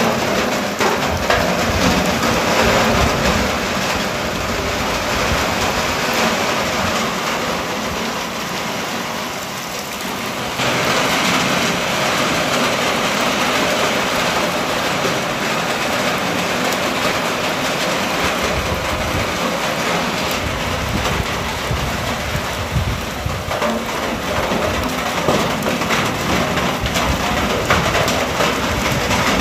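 Heavy rain falling steadily on flooded ground, puddles and trees, a dense even hiss that steps suddenly louder about ten seconds in.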